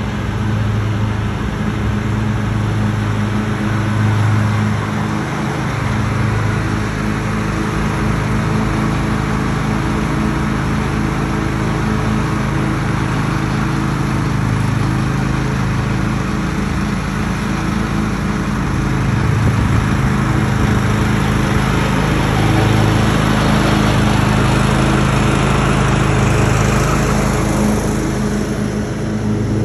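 John Deere X320 lawn tractor mowing with its rear grass bagger, the engine running at a steady pitch under load. It grows louder as it drives close past near the end.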